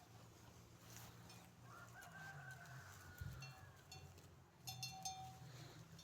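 A rooster crowing once, faintly, for about a second and a half. Sheep bells clink briefly near the end.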